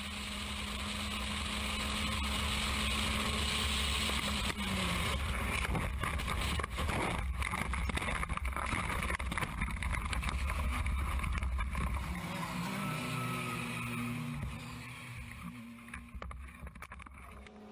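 Onboard sound of a single-seater race car: engine running at speed with wind noise, its note dropping about five seconds in. Rough scraping and a few knocks follow as the car skids through gravel and hits the barrier. In the last few seconds the engine sounds weaker and wavering as the car comes to rest.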